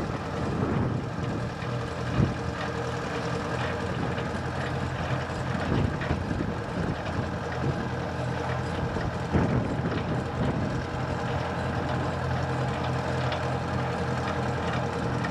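Narrow-gauge locomotive engine running steadily at low revs, with a few sharp clanks.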